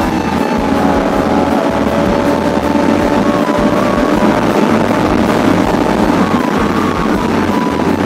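Bajaj Pulsar RS200 motorcycle cruising at steady speed, its engine running evenly under wind rush, with background music playing over it.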